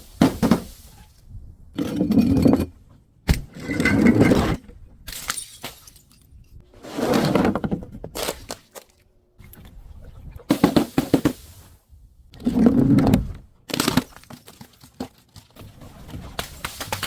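Brittle objects being crushed and breaking, a series of short crunches every two to three seconds with quiet gaps between.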